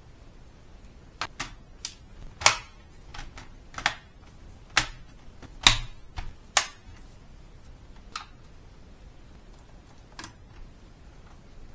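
Plastic palmrest cover of a Toshiba Satellite C670D laptop being pressed down so its clips snap into place: a run of sharp plastic clicks, two of them much louder than the rest, then a few fainter clicks near the end.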